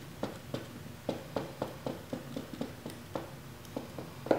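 Light, irregular clicks and taps, about three a second, as a small nut is threaded by hand onto a push-button switch through a thin wooden panel, with a sharper knock near the end.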